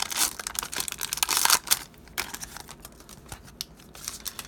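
Crinkling and rustling of a foil trading-card pack wrapper and cards being handled, dense in the first two seconds, then thinning to scattered light clicks.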